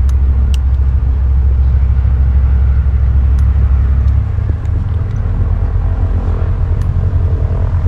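Single-engine light aircraft landing and rolling out on the runway, its piston engine throttled back, heard as a steady low rumble that weakens a little about four seconds in.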